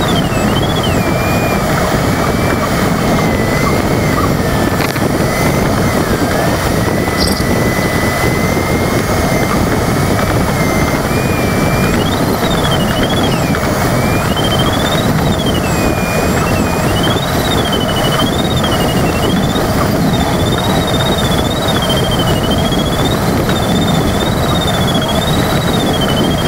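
Steady rush of airflow inside a glider cockpit, over a continuous electronic variometer tone that slides up and down in pitch. The tone holds low and fairly level for the first half, then from about halfway through it sits higher and swings up and down repeatedly. On a variometer a higher pitch signals stronger climb, so this is the glider circling in lift.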